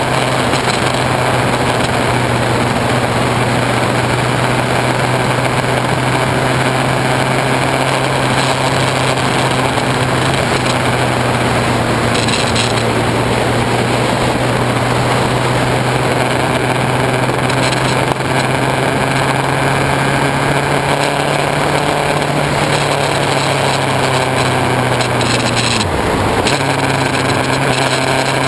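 Honda CBF600S inline-four engine running steadily as the motorcycle is ridden, under a loud, strange rushing noise caused by the GoPro's waterproof housing. Near the end the engine note dips briefly and then picks up again.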